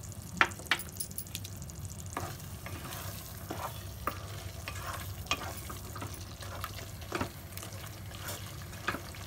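A spoon stirring chicken korma gravy in a pan on the stove, with scattered clinks and scrapes against the pan, the sharpest about half a second in. A steady low hum runs underneath.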